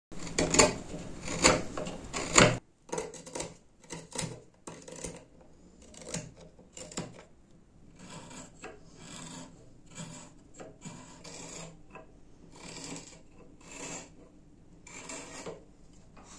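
Wild plum wood being abraded by hand in back-and-forth strokes. Three loud scrapes come about a second apart at first, then softer, irregular rubbing strokes.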